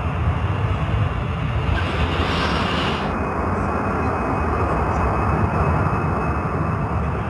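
Steady drone of a jet airliner in flight, with a brief added hiss from about two seconds in that stops about a second later.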